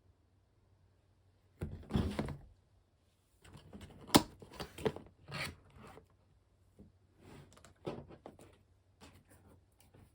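Product packaging being handled: a dull thump with rustling, then a sharp click about four seconds in, followed by scattered rustles and small knocks.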